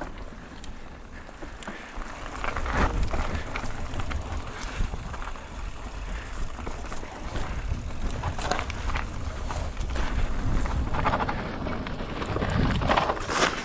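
Mountain bike ridden over a rough trail: wind buffeting the microphone over a steady rumble, with irregular rattles and knocks as the bike goes over bumps.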